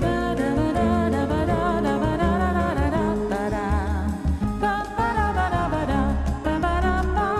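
Music: a song with a wavering, vibrato singing voice over a steady, heavy bass line.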